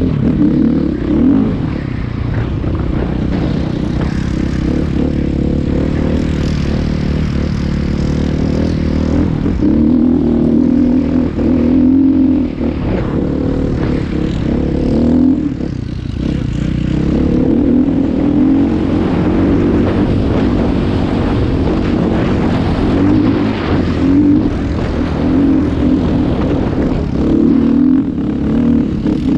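Off-road vehicle engine running continuously, its note rising and falling with the throttle.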